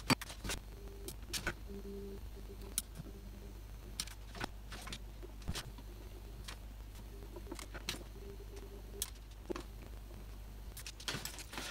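Scattered small sharp clicks and taps as a soldering iron tip and fingers work over a small LED-bulb driver circuit board, resoldering its joints. A faint low hum comes and goes underneath.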